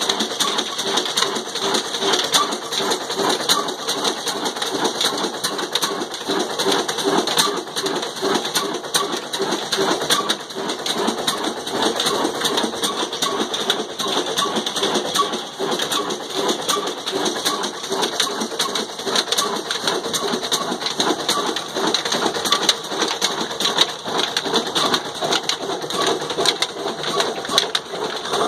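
Old 28 HP black desi stationary engine, a Ruston Hornsby-type single-cylinder diesel, running steadily with a rhythmic chug. It is under load, driving a stone flour mill through flat belts and a line shaft.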